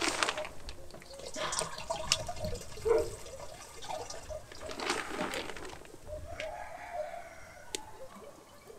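Liquid trickling and splashing as a dose of chlorine solution is poured from a small bottle into the plastic tank of a motorised sprayer. Scattered knocks and clicks of the bottle and container being handled come in between.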